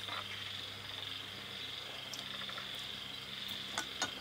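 Steady, high-pitched chirring of an insect chorus, with a couple of light clicks of chopsticks against bowls near the end.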